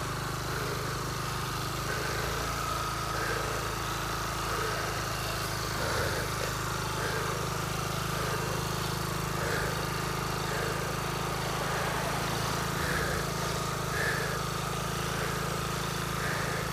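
Steady engine drone of a motor vehicle running at low speed, with faint soft sounds repeating about every second and a half.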